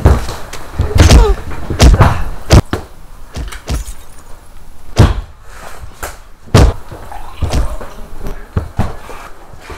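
A series of loud, irregular thuds and knocks, about a dozen, spaced roughly a second apart.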